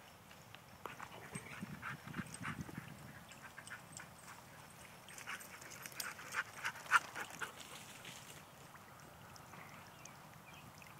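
A dog making short whimpering yips in two bouts, about a second in and again around the middle.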